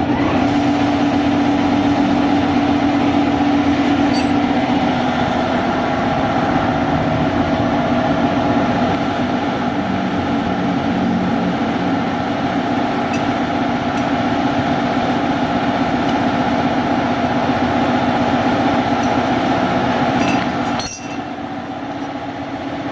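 Workshop air compressor running with a steady, loud hum that drops away near the end. A few light metal clinks of tools sound over it.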